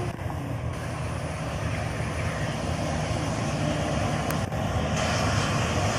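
Jet engines of a Boeing 737-900ER (CFM56-7B turbofans) running at low power as the airliner taxis along the runway, a steady rumble that grows slowly louder as it approaches.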